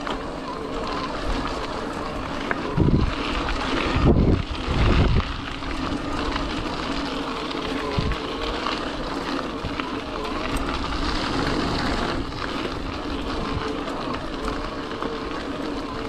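Wind buffeting the microphone of an e-bike in motion on a trail, with louder gusts about three to five seconds in. Under it runs a faint, wavering whine from the bike's Tongsheng TSDZ2 mid-drive motor.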